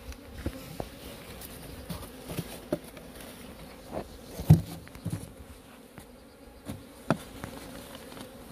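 Honeybees buzzing steadily around an open hive, with scattered knocks and rustles as the hive's cover and cloth sheet are lifted off; the loudest knock comes about halfway through.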